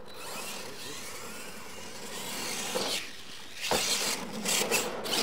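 Radio-controlled monster truck driving hard on dirt: its motor whining up and down with tyres churning and spraying dirt, a sharp knock about two-thirds of the way through, then louder, choppier running as it slides.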